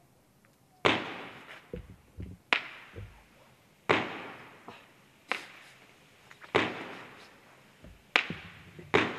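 A 20-shot firework battery (Profi Line 8.16, red Falling Leaves) firing its shots in a steady sequence, starting about a second in and coming about one every second and a half, seven in all. Each shot is a sharp bang with a fading echo, with fainter pops and low thuds between the shots.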